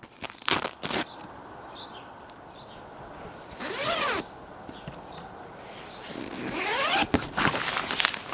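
Tent zipper being pulled twice, after a few short clicks: one zip about three and a half seconds in, and a longer one near the end that rises in pitch.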